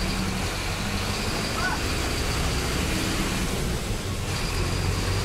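Mascarello Gran Via city bus heard from inside the cabin while driving: its engine runs steadily under the road noise.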